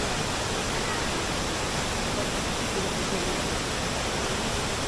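Devi's Falls in Pokhara, a waterfall plunging into a narrow rock gorge, giving a steady rushing noise. The flow is low in the dry winter season.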